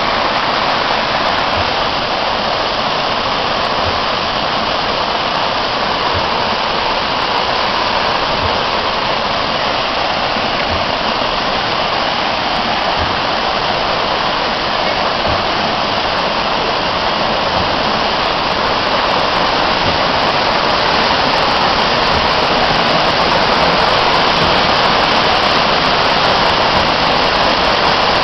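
Steady rush of falling water, loud and even, growing a little louder near the end.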